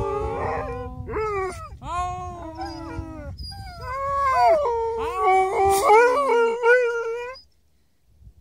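Alaskan malamutes howling together: several overlapping long howls that bend up and down in pitch, which the owner calls the 'walkies howl'. The howling stops about seven and a half seconds in.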